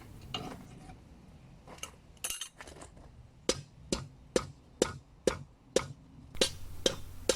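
Hammer blows on the steel of a meteorite-damascus katana blade as its point is forged: a few scattered strikes, then a steady run of blows about two a second over the second half.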